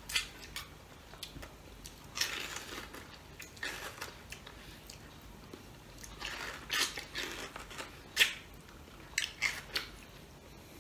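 Close-up eating noises of a ripe mango being bitten, sucked and scraped clean with the teeth: short wet bites and slurps coming in irregular bursts, a few of them sharp.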